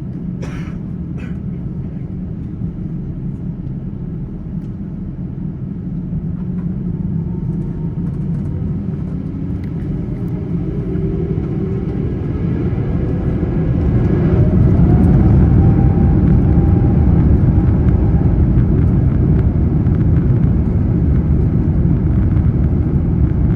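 Airbus A350-900's Rolls-Royce Trent XWB engines spooling up, heard inside the cabin: a low rumble grows louder while a whine rises in pitch over several seconds, then both hold steady and loud, as for the takeoff run. Two short clicks sound right at the start.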